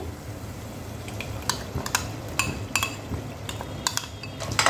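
Spiced yogurt masala being tipped and scraped from a bowl into a stainless steel pot: a scattering of short, sharp clinks of utensils against the bowl and the pot rim, about nine in all, most of them in the second half.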